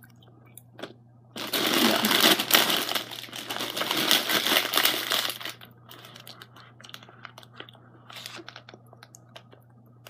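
Clear plastic candy bag crinkling loudly as it is handled and rummaged through for about four seconds, then a few softer crackles and clicks.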